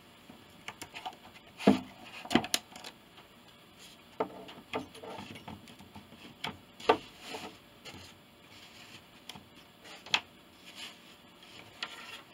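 Hands handling craft materials on a tabletop: pressing and rubbing a sign onto a crochet-covered wreath and picking up a hot glue gun. This gives a scatter of irregular light knocks and taps with soft rubbing between them.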